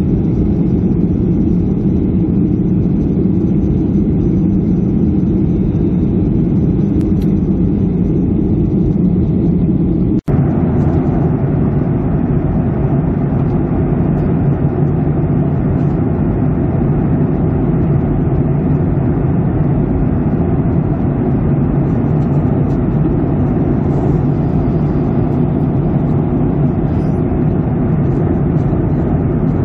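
Steady jet airliner cabin noise in flight: engine drone and rushing air heard from a window seat. The sound cuts out for an instant about ten seconds in, and the hum settles slightly lower afterwards.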